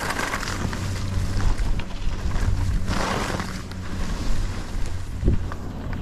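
Wind noise rushing over the microphone while skiing downhill in a blizzard, with a steady low rumble. Skis hiss over powder snow in two turns, one at the start and one about three seconds in.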